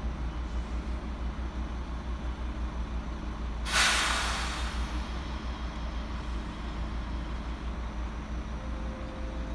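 ICE 3 high-speed train standing at the platform with a steady low hum. About four seconds in, a short, loud hiss of compressed air lasts about a second and fades.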